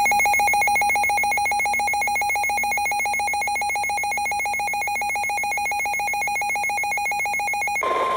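Emergency Alert System attention tone: a rapidly pulsing, warbling alarm tone that sounds for nearly eight seconds and cuts off sharply near the end. A steady, slightly higher single alert tone then begins.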